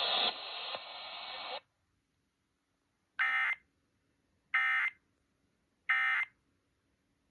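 Three short Emergency Alert System end-of-message data bursts (the SAME "NNNN" code), electronic warbles of about half a second each, sent a little over a second apart to close the test. Before them, radio hiss cuts off about a second and a half in.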